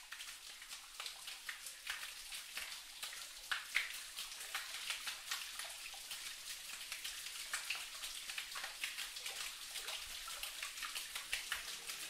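Water dripping inside a cave: many small drops falling at irregular intervals.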